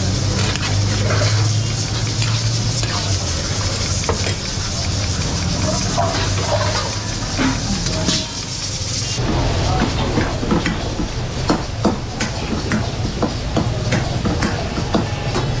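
Mutton sizzling in oil in a steel karahi over a gas flame: a steady frying hiss over a low rumble. About nine seconds in, this gives way to rapid clatter and scraping as a metal spatula stirs the mutton and tomatoes in the karahi.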